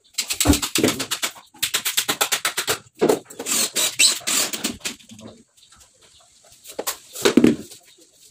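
Cordless drill driving screws into a cabinet panel: runs of rapid, even clicking, about ten a second, each run a second or so long, with a lull after about five seconds and one more run near the end.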